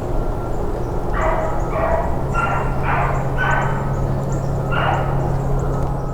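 A beagle baying while running a rabbit's track: about six short bays, the last a little apart from the rest, over a steady rush of noise.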